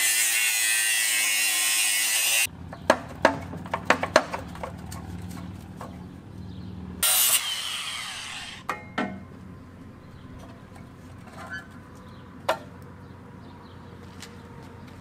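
A power tool runs with a steady noise and stops about two and a half seconds in. A run of metal clanks and knocks from parts and tools being handled follows, with a short hiss about seven seconds in and a few more knocks after.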